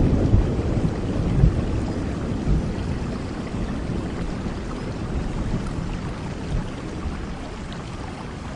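Steady rainfall, with a low thunder rumble dying away over the first couple of seconds; the rain then runs on evenly.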